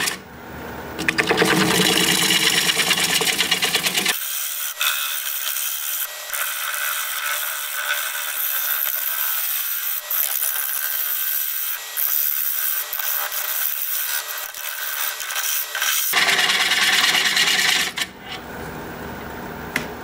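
A bowl gouge cuts into a cracked juniper blank spinning on a wood lathe, giving a steady scraping hiss of shavings over the lathe's running. For most of the middle the low end drops away and it turns thin and hissy. A few short sharp pops come through, which the turner fears are the cracks and inclusions giving way.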